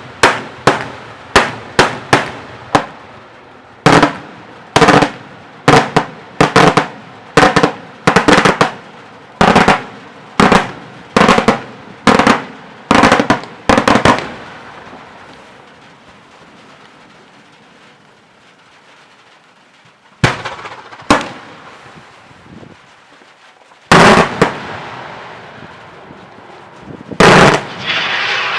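Daytime fireworks: a rapid run of sharp, loud aerial bangs, about two a second, that echo away after some fourteen seconds. After a lull come a couple of single bangs and, near the end, two heavier blasts.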